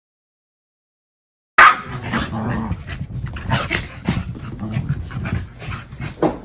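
Silence for about a second and a half, then two Pembroke Welsh corgis play-fighting start abruptly and loudly: growling and panting with quick, irregular short sounds.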